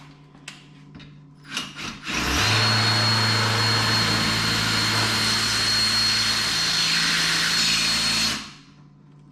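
Power drill motor running steadily for about six seconds with a high steady whine, starting about two seconds in and stopping near the end, after a few light handling clicks.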